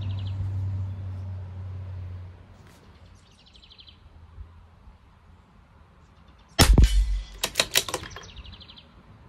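A single .22 LR rifle shot from a CZ 457 bolt-action about six and a half seconds in, followed within a second by a quick run of metallic clicks as the bolt is cycled. A bird trills briefly before and after the shot.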